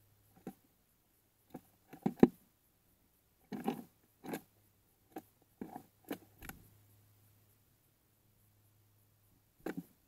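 Tufted titmouse's feet and bill knocking and scraping on a clear plastic feeder dish of peanuts as it lands and picks at the nuts. Scattered sharp taps, the loudest a pair about two seconds in, then a cluster over the next few seconds and one more near the end, over a faint low hum.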